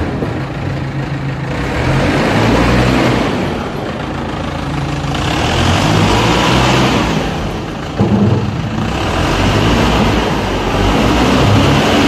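Underground LHD loader's engine running loud under load, swelling and easing as the machine moves, with a sudden clank about eight seconds in.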